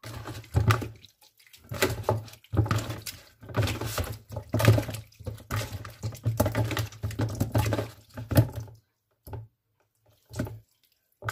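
Hands washing raw chicken drumsticks rubbed with salt in water, with uneven sloshing and splashing that mostly stops about nine seconds in.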